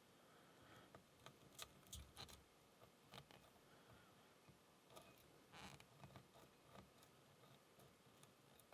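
Faint, scattered clicks and small scrapes of a lock pick and tension tool working the pins inside a Burg Wächter Karat padlock, with one slightly longer scrape about five and a half seconds in.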